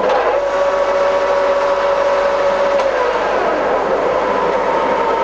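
TOS SN50B centre lathe running with its spindle at about 1,000 rpm: a steady mechanical hum with a gear whine of several tones from the headstock, the strongest tone fading about three seconds in.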